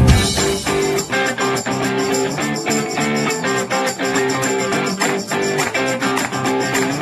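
Instrumental background music led by guitar. The bass drops out as it begins, leaving a lighter, rhythmic texture.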